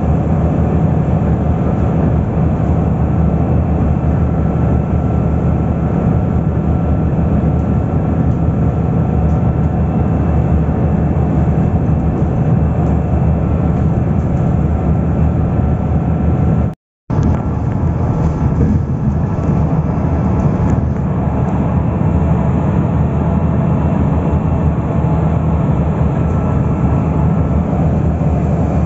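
Steady road and engine noise of a moving vehicle, heard from inside, cutting out completely for a moment about seventeen seconds in.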